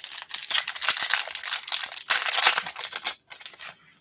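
Foil wrapper of an Upper Deck MVP hockey card pack being torn open and crinkled by hand: a dense crackling that pauses briefly about two seconds in and again just after three, then stops just before the end as the cards come out.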